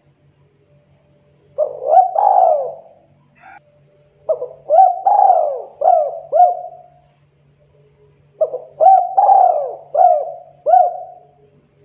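Spotted dove cooing: three phrases of rising-and-falling coos, a short one about one and a half seconds in, then two longer ones of five or six notes each, starting at about four and eight seconds, with short pauses between them.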